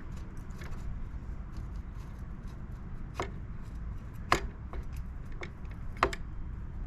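A motorcycle's front brake caliper being worked off the brake disc by hand, making a scatter of light metallic clicks. Three sharper knocks stand out, about three, four and six seconds in, over a low steady rumble.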